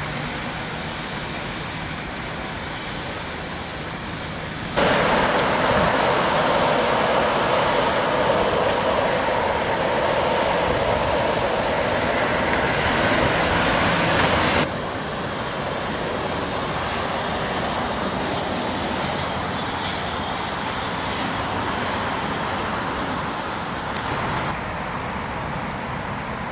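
Steady street traffic noise from cars on a town road. A louder stretch from about five to fifteen seconds in starts and stops abruptly.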